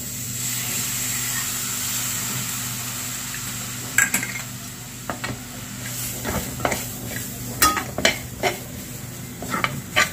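Lemon juice poured into the hot gram-flour (besan) zunka sizzles steadily for a few seconds, then a steel spatula stirs the crumbly mixture, clinking and scraping against the metal pan in quick irregular knocks.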